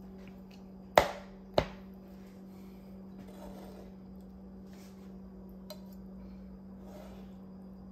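Two sharp knocks about half a second apart, a knife chopping through cooked chicken onto a cutting board, followed by faint handling noises over a steady low hum.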